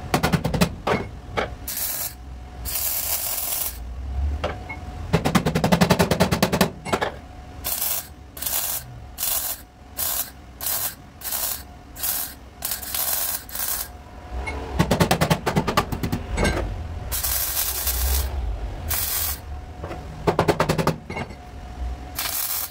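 MIG welder crackling in short bursts as tack and stitch welds are laid on a car's sheet-metal body panel, with a run of quick tacks in the middle and a few longer beads of a second or two.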